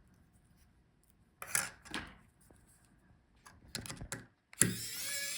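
Light clicks and taps of small laptop parts being handled: an M.2 SSD and its metal extension bracket, in a few short groups. Near the end a steady hiss sets in abruptly.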